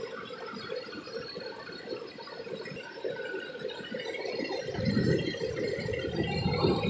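Steady rough noise of a warm car engine idling under the open hood, louder about five seconds in, with air gurgling through the block tester's test fluid as it is drawn from the radiator.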